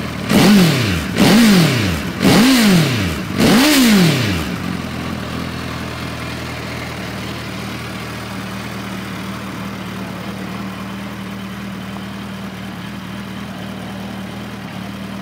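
2014 Suzuki GSX1300R Hayabusa's inline-four engine, heard through a Yoshimura muffler, revved four times in quick succession, each rev rising and dropping back, then idling steadily for the rest.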